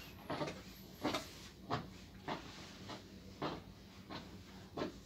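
Handheld garment steamer worked over a hanging black abaya: about seven short swishes, roughly one every two-thirds of a second, as the steamer head is stroked along the fabric, over a faint steady hum.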